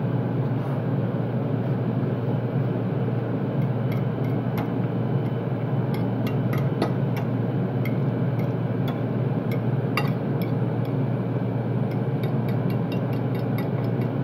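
A metal fork clinks and scrapes against a ceramic plate in repeated light clicks as food is picked up and eaten, over a steady low machine hum.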